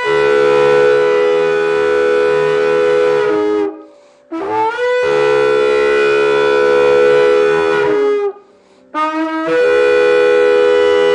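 Shofar blown in long blasts. Each blast starts on a lower note, jumps up to a higher held note and drops back just before it stops. One blast ends about three and a half seconds in, a second runs about four seconds, and a third begins near the end.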